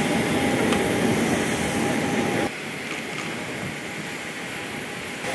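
Steady drone of a parked Boeing 737-8ZY's turbines, with a thin steady whine over it. The level drops abruptly about halfway through.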